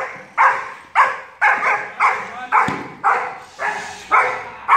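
Young German Shepherd barking over and over, about nine sharp barks at a steady pace of roughly two a second, while straining on its leash.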